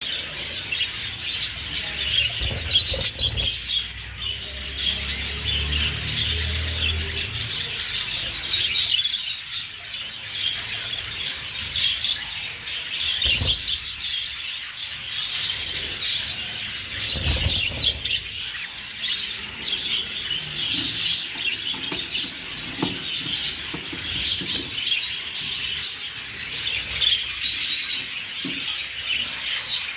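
Many small birds chirping and chattering together in a dense, continuous twitter, with a few low thumps.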